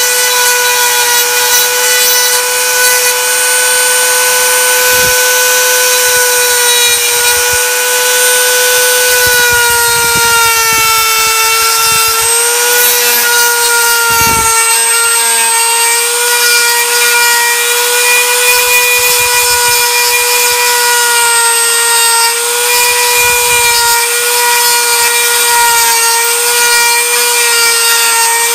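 Handheld rotary tool with an abrasive point running with a steady high whine, its pitch dipping slightly at times as it grinds acrylic. It is trimming the acrylic of a Bionator orthodontic appliance over the biting and tongue-side surfaces of the lower teeth.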